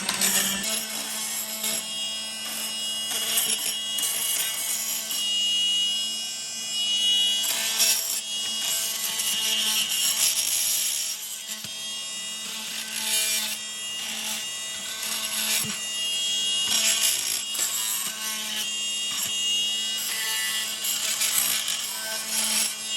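Small power tool sanding paint off a bus's metal roof around the rivets: a steady motor hum under a grating, scraping noise that swells and fades as the tool is worked across the surface. The motor starts just after the opening and cuts off at the end.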